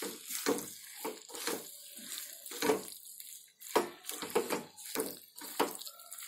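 Wooden spatula stirring boiled potatoes and spice paste in a metal kadai: repeated wet, squelching scrapes against the pan, about two strokes a second.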